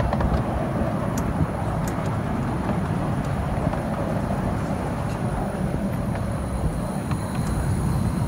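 Steady rumble and rattle of a 10¼-inch gauge miniature railway train running along the track, heard from on board, with a few sharp clicks through it.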